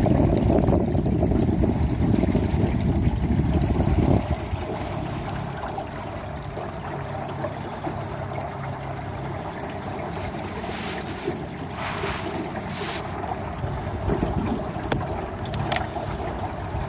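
Small aluminium jon boat under way on a river: a steady rush of wind and water noise, louder for the first four seconds and then lower and even.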